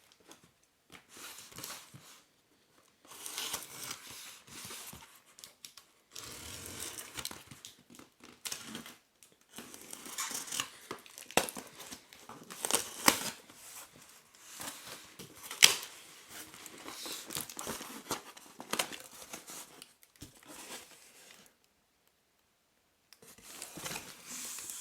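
A packaged box being opened by hand: bursts of tearing, rustling and crinkling of the packaging, with a few sharp clicks and a short pause near the end.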